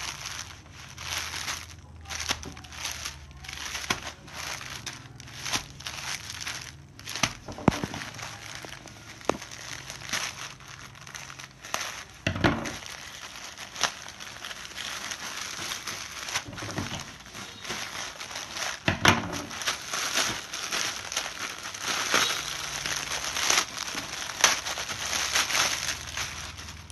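Plastic courier mailer bag crinkling and crackling as hands handle it and pull it open, irregular and denser in the second half, with a few louder knocks.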